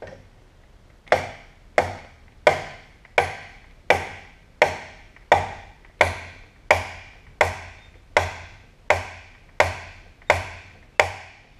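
Fifteen steady hammer blows on metal, about one every 0.7 seconds, each ringing briefly: pounding a stuck pin out of an old drill press, a pin that is still moving hard.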